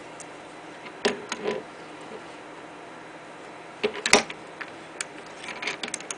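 Handling noise of a small spindle unit and dial indicator being repositioned by hand: a few sharp knocks and clicks of metal parts against each other and the bench, the loudest a quick pair about four seconds in.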